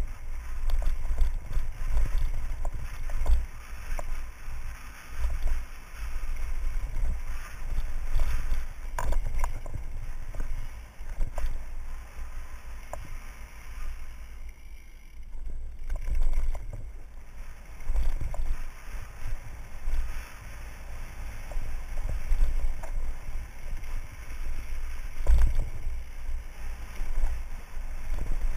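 Wind buffeting the microphone of a helmet-mounted camera on a mountain bike riding fast down a dirt singletrack, a low gusting rumble, with scattered clicks and rattles from the bike over rough ground. It eases for a few seconds about halfway through.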